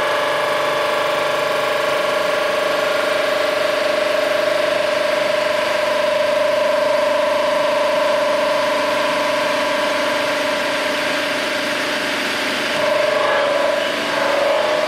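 Cylinder head resurfacing machine running steadily with a whine, machining an aluminum Ford flathead V-8 cylinder head flat; the tone wavers a little near the end.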